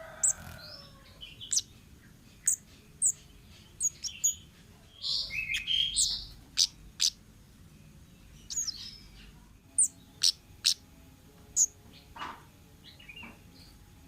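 Wild kemade bird calling: a series of short, sharp, high chirps at irregular spacing, with a brief run of lower warbling notes about five seconds in.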